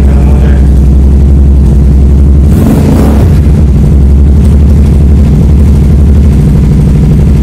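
Kawasaki Ninja sport bike engine running steadily at idle, loud and close, with a brief louder burst about two and a half seconds in. It is running after being put back together, to test whether it starts and runs.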